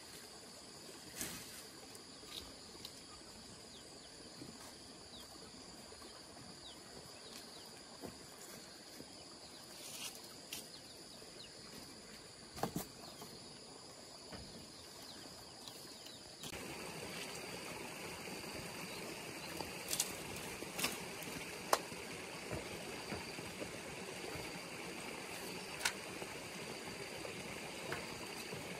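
Countryside ambience: a steady high insect drone with scattered light clicks, rustles and knocks, as of dry thatch leaves being handled and footsteps. About halfway through, the background suddenly gets louder and fuller.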